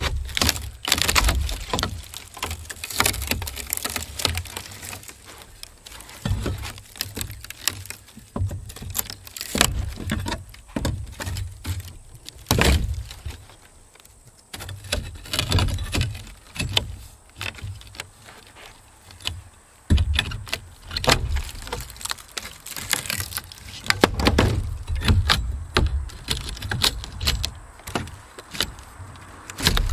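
Rotten wooden roof boards being pried up and torn out with a hammer: irregular knocks, cracks and creaks of splitting wood and pulled nails, with hammer blows.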